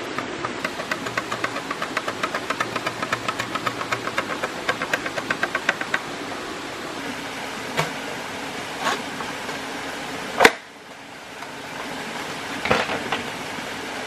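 A knife working a green bamboo pole: a quick run of light ticks, about five a second, for several seconds, then a few separate knocks of the blade on the bamboo, the sharpest about ten seconds in. A steady rush of a small stream and waterfall runs underneath.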